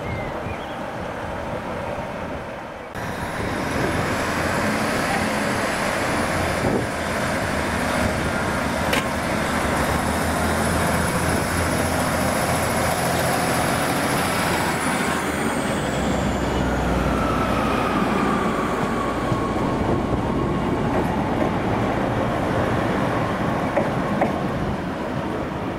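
A train running through the station, its steady rolling noise coming in suddenly about three seconds in. About two-thirds of the way through, a high whine falls slowly in pitch while a deep rumble swells.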